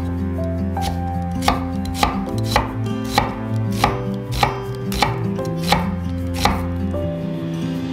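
Kitchen knife slicing a shallot on a wooden cutting board: a steady run of crisp knife strikes on the board, about three every two seconds, stopping shortly before the end.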